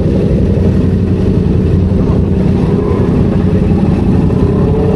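Car engine running steadily with a loud low rumble and a steady hum.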